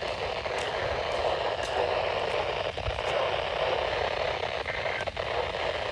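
Steady radio static hiss from a weather radio receiver on a weak NOAA Weather Radio signal, with a few faint clicks.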